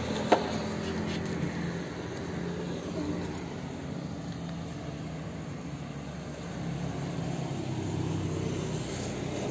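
Steady background of distant motor traffic: a low engine hum that fades in the middle and comes back near the end. A short click sounds just after the start.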